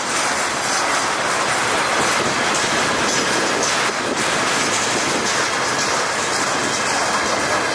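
Railway tank wagons of a freight train rolling past at close range: steady loud noise of steel wheels running on the rails.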